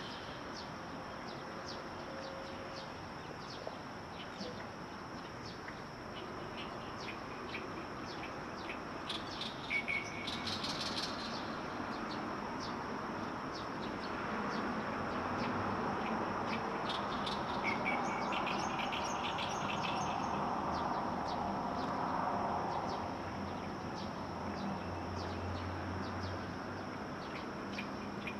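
Small songbirds chirping, with short high calls scattered throughout and denser bursts of twittering about ten seconds in and again around eighteen seconds, over steady background noise.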